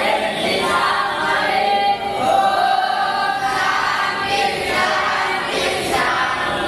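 A group of voices chanting together in unison, a continuous sung recitation.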